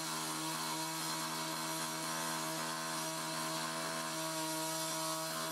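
Motorized construction equipment running at a constant, steady pitch, with a hiss over the hum.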